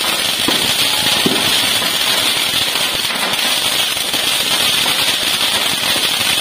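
A string of firecrackers going off on the street, a fast, unbroken stream of crackling bangs that holds steady and loud.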